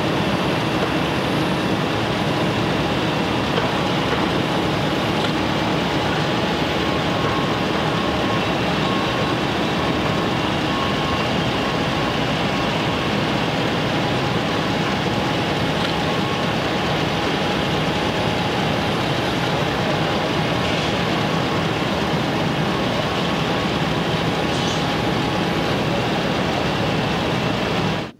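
Steady drone of construction-site machinery, a dense even noise with a few faint held tones in it, cutting off suddenly near the end.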